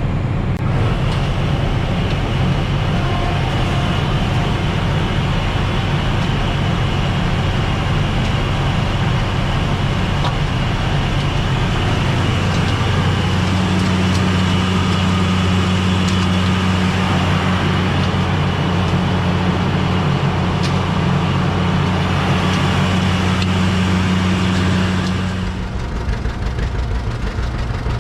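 A road vehicle driving at a steady speed, with a continuous engine hum and road noise. The noise drops noticeably near the end.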